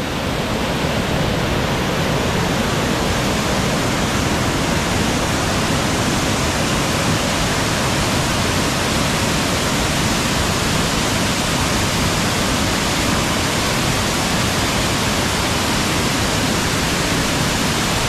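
Waterfall in full flow, pouring over stepped rock ledges into a pool and heard close up: a loud, steady rush of water.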